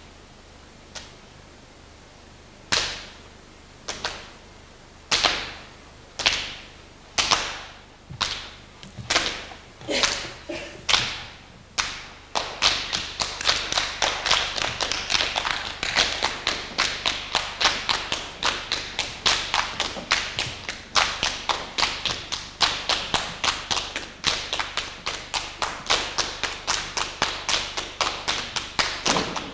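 Body percussion by several performers: sharp hand claps and slaps, single strokes at first, about one a second, then from about twelve seconds in a fast, dense rhythm of many strokes.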